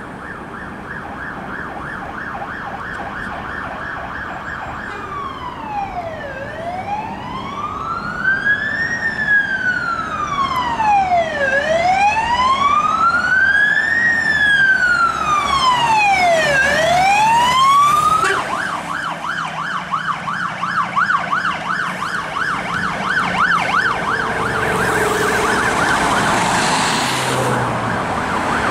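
Electronic siren of an Angloco Volvo combined platform ladder fire engine running on an emergency call. It starts on a fast yelp, changes to a slow wail that rises and falls about three times, then switches abruptly back to a fast yelp. It grows louder as the appliance approaches, and near the end a rush of engine and road noise joins it as the vehicle passes.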